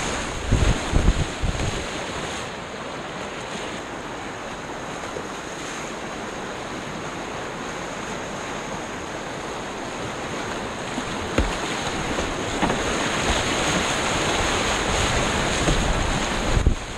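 Whitewater rushing and splashing around a kayak as it paddles through waves, with wind buffeting the microphone. Heavy splashes and buffets come in the first two seconds and again near the end, and the rush of water grows louder in the second half.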